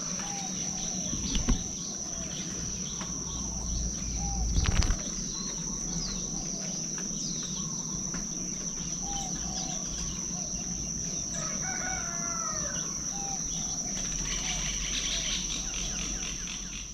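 Chickens clucking and a rooster crowing, over a steady high-pitched insect drone. Two low bumps come about one and a half and four and a half seconds in.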